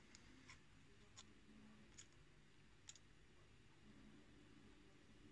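Faint, sparse clicks of a lock pick working the pin stack inside a KIK cylinder lock, five or so irregular ticks in the first three seconds.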